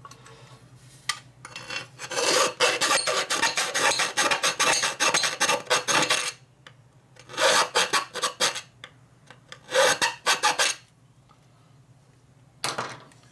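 Hand file rasping back and forth on a metal part, slotting out a bolt hole so it will line up. Quick strokes come in a long run, then several shorter runs with pauses between.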